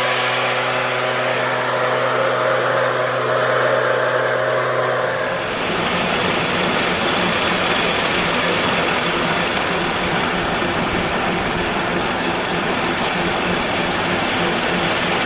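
Engine-driven cranberry harvest machinery running: a steady engine hum for about five seconds, then a harsher, rougher running noise without a clear pitch.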